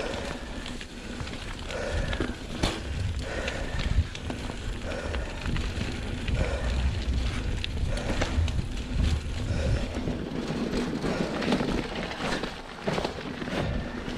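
Mountain bike ridden along a dirt singletrack trail: tyres rolling over dirt and roots under a low rumble, with frequent irregular knocks and rattles from the bike.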